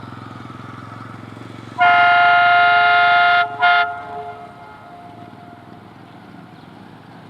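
Horn of a WDG-3A ALCO diesel locomotive: one long loud blast of about a second and a half, a brief break, then a short second blast whose tone trails off over the next second. The locomotive's diesel engine is heard running underneath.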